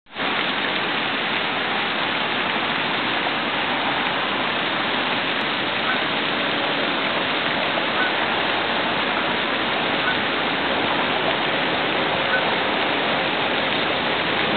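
Lake fountain's jet spray falling back onto the water: a steady rushing, splashing hiss.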